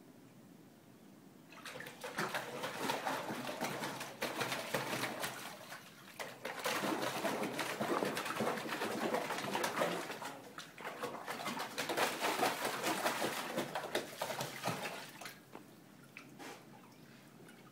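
A dog splashing and pawing in a horse water trough: water sloshing and slapping in bursts. The splashing starts about a second and a half in, eases briefly around six and ten seconds, and stops about fifteen seconds in.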